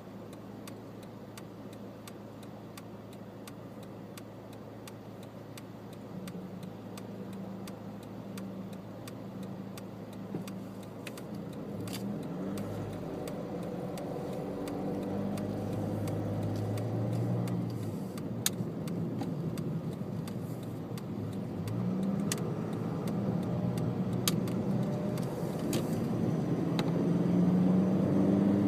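Car engine idling steadily, with faint regular ticking, heard from inside the cabin. About eleven seconds in the car pulls away, and the engine pitch rises and drops again several times through the gear changes as it gets louder.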